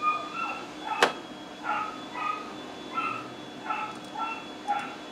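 Dog barking in a steady string of high-pitched barks, about two a second, at a vacuum cleaner that is running. A single sharp click comes about a second in.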